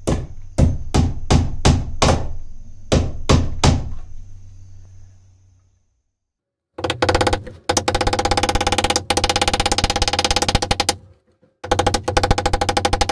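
A steel claw hammer driving nails through an electrical box's metal bracket into a wooden stud: about nine sharp, ringing blows in the first four seconds. After a short pause, a fast, even rattle of many clicks a second runs in two stretches, broken by a brief gap near the end.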